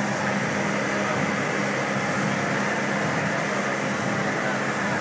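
Steady din of a dense crowd and street noise, with a constant low hum underneath and no distinct events.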